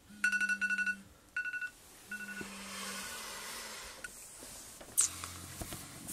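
Smartphone alarm going off in quick pulsed beeps with a low buzz under them, in three bursts that stop after about three seconds. A soft rustle of bedding follows.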